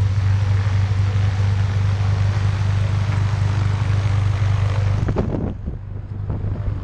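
Single-engine skydiving plane's piston engine idling on the ground with its propeller turning: a loud, steady drone. About five seconds in the sound turns duller, with a few short knocks.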